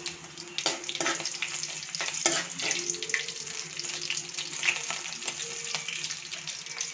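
Curry leaves, mustard seeds and slit green chillies sizzling in hot oil in a metal kadai, with scattered sharp pops and crackles through the hiss. This is the spluttering of a tempering (tadka) as the seasoning fries.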